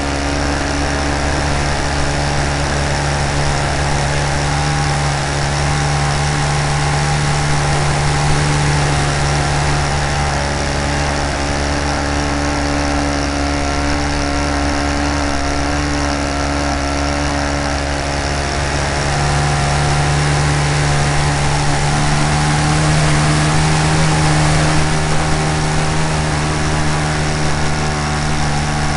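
Great Planes Slow Poke RC model airplane's engine running steadily in flight, heard from a camera mounted on the plane, with its level and pitch rising slightly about twenty seconds in.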